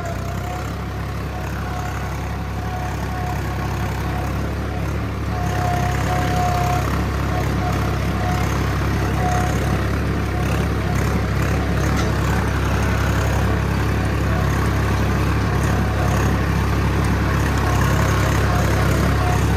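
Swaraj 855 4x4 tractor's three-cylinder diesel engine running steadily under heavy load while pulling an 11-tine cultivator in third gear, with a thin whine that comes and goes. It gets a little louder about five seconds in.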